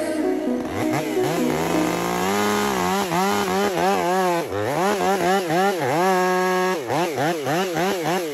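Stihl MS500i two-stroke chainsaw revved hard, its pitch rising and falling over and over, with quicker blips of about two a second in the second half.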